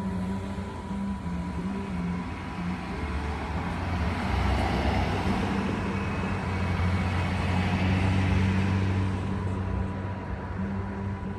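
Road traffic: car engine and tyre noise over a steady low hum, swelling to its loudest about two-thirds of the way through as a vehicle passes, then easing off.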